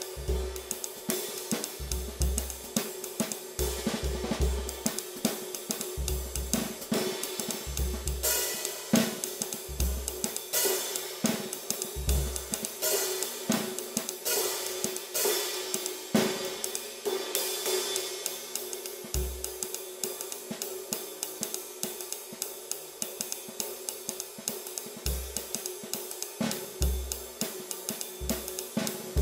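Drum kit groove led by a Paiste Formula 602 Classic Sounds 20-inch thin flat ride cymbal played with sticks, with hi-hat, snare and bass drum thumps now and then.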